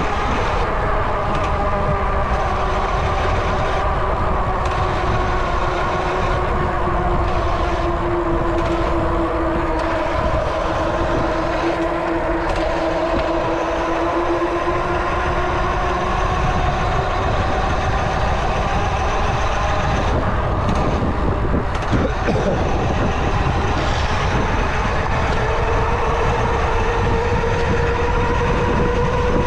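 Fat-tire mountain bike's knobby tires humming on pavement, a steady droning tone that sinks slightly and then climbs again as the bike's speed changes, over wind rumble on the microphone.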